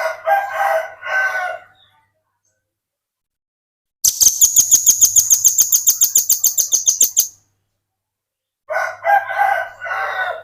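Velvet-fronted nuthatch song: a rapid, high-pitched trill of about ten notes a second lasting some three seconds in the middle. It is framed by a lower, three-part call at the start and again near the end.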